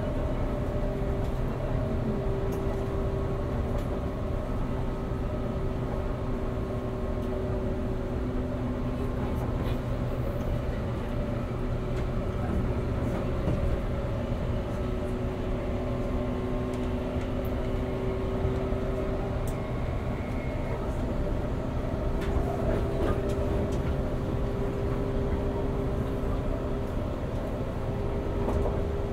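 Running sound heard inside a 189-series EMU motor car (MoHa 189-20): a steady rumble of wheels on rail, with the even hum of its MT54 DC traction motors and gearing as the train holds a steady speed.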